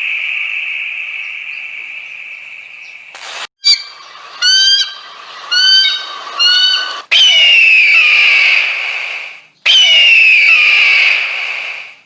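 Eagle calling. A high, drawn-out scream fades away, then after a cut come about four short, high chirping calls a second apart. These are followed by two long, high screams that slide downward, each cut off abruptly.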